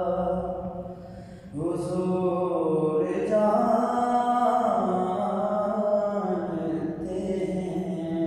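A solo male voice singing an Urdu naat unaccompanied, in long drawn-out melismatic phrases, with a short break for breath about a second and a half in before the next phrase.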